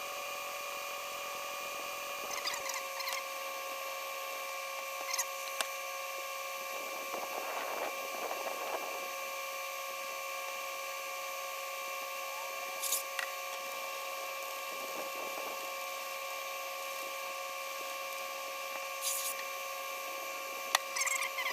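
A small electric power tool runs with a steady whine while a 1,000-grit sanding pad works a plastic headlight lens. Short scrubbing swishes and a few clicks come and go over the whine.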